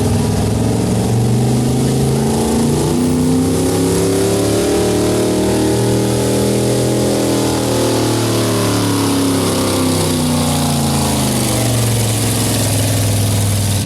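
Pulling truck's engine running hard under load, its pitch climbing for several seconds and then easing back down. The sound cuts off suddenly at the end.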